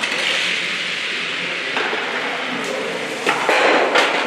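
A stock (Eisstock) sliding down the lane with a steady hiss, then several sharp clacks about three to four seconds in as it strikes other stocks near the target.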